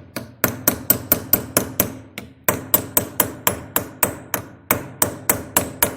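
Hammer blows on the steel gas-joint ring of a KamAZ cylinder head, driving it out: a fast, even run of sharp metal strikes, about four a second, with a short break a little past two seconds in.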